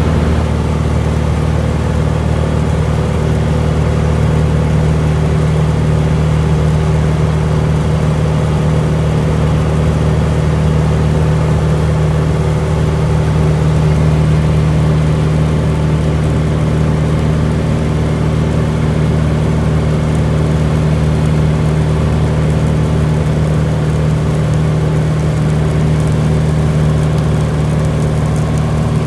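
A single-engine piston airplane's engine and propeller running at a steady power setting, a constant low drone heard inside the cockpit.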